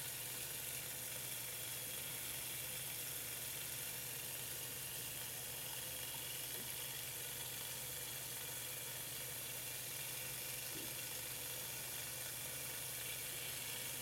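Steady faint whir and hiss of a 2-inch, 1.7-pound magnet spinning fast on its shaft, driven by a pulsed coil.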